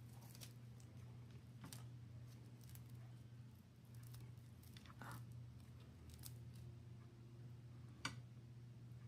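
Near silence: a steady low hum with faint, scattered small clicks, and one sharper click about eight seconds in.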